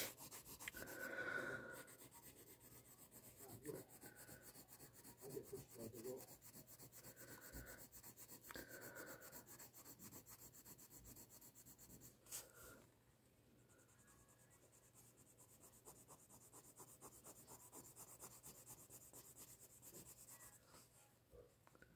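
Faint scratching of a coloured pencil shading back and forth on paper, in quick short strokes. A single sharp click about halfway through, after which the scratching is a little quieter.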